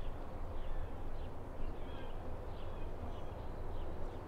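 Outdoor ambience: small birds chirping over and over, several short chirps a second, over a steady low rumble.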